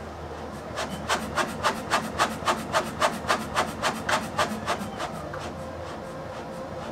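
A reciprocating pump working a latex donut balloon: a rhythmic rasping of about five short strokes a second, fading out about five seconds in.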